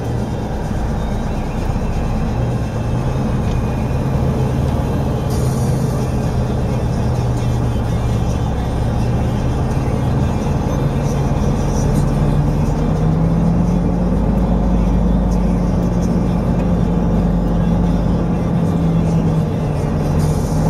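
Truck engine running steadily as the truck drives slowly, heard from inside the cab; the engine note rises about two-thirds of the way through as it picks up revs.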